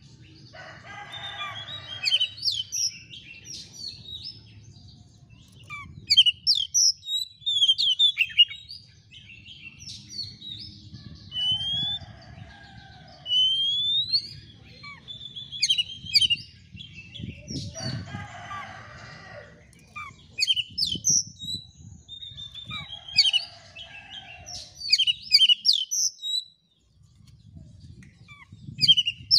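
Oriental magpie-robin singing a long, varied song of short whistles, rising glides and harsh chattering phrases, with a steady low rumble underneath.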